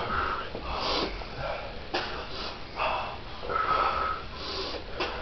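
A man breathing hard in sharp, hissing breaths through the mouth, about one a second, one with a faint whistle, as he pants against the burn of an extremely hot chili sauce in his mouth.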